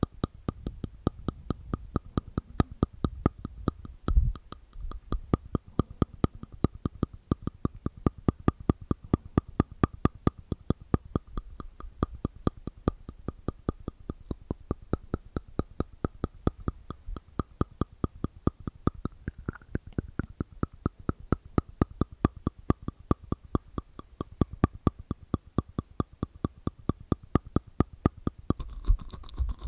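Close-miked ASMR mouth sounds: a rapid, even run of sharp, wet clicks made inside the mouth with the tongue and teeth, several a second.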